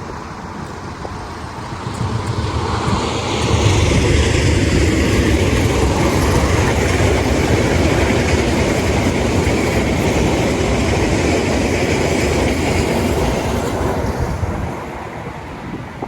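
A train passing close by on the rails: the rumble and rattle of its wheels build up about two seconds in, stay loud for about ten seconds, then die away near the end.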